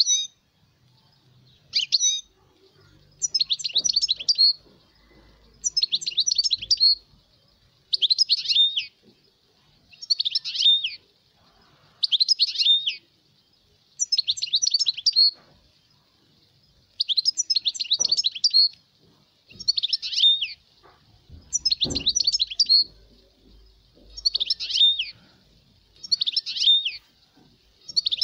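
European goldfinch singing: short, fast twittering strophes of about a second each, repeated about every two seconds.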